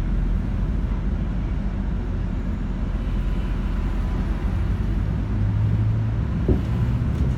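Bus engine and road rumble heard from inside the passenger cabin, steady and low, with the engine note swelling from about four and a half seconds in.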